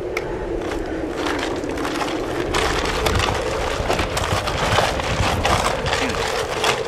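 Feet scuffing and crunching over a gritty, straw-strewn floor, the crackling growing denser about two and a half seconds in, over a steady drone.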